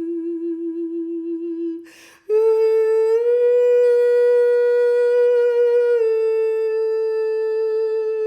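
A single voice humming long held notes for sound healing. About two seconds in it breaks off briefly with a breath, then comes back on a higher note that rises a little, and steps down to a slightly lower held note about six seconds in.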